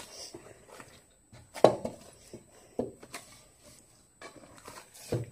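A hand kneading and pressing warm scalded rice-flour dough for idiyappam in an aluminium pot: irregular soft thuds and squishes.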